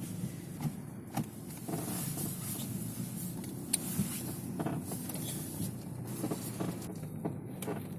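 Chery Tiggo 2 driving, heard from inside the cabin: steady road rumble with several short creaks and clicks at irregular moments. These come from the right front strut, which the owner believes squeaks because dirt has got in through a torn ball-joint boot.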